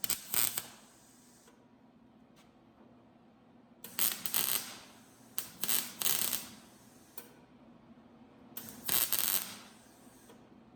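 Four short, noisy bursts of sheet-metal working, each half a second to a second long, with quiet gaps between them.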